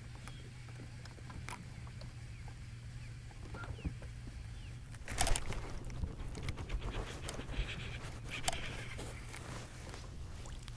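A fish, a snakehead or a bass, strikes the lure hard with a sudden splash about five seconds in. A few seconds of splashing and rattling follow over a steady low hum.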